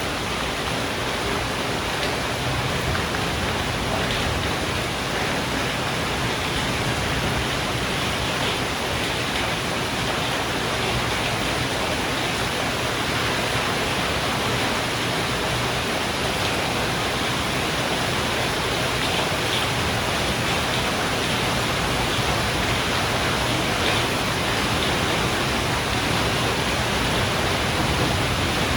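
Steady thunderstorm rain, an even hiss with faint scattered drop ticks.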